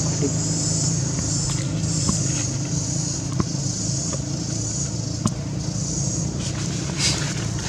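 Steady low hum of an idling motor vehicle engine under a high insect drone, typical of cicadas, that swells and fades about once a second, with scattered faint clicks.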